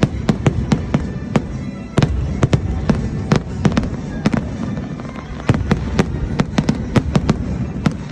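Fireworks display going off in quick succession: several sharp bangs a second over a continuous low rumble of bursting shells.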